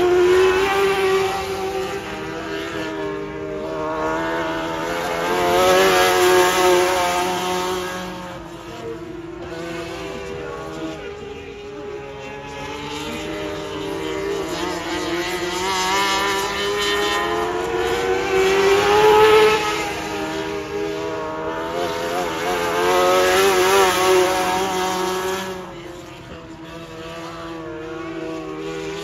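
Jr Sportsman dirt-track race cars' engines running at speed around the oval. The engine note rises and falls in pitch and swells loudly as cars come past on the straights, then fades as they go around the far end.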